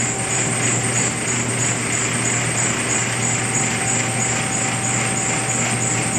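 Steady machine-shop background noise: a constant low hum with a faint steady whine and a high hiss that pulses about three times a second.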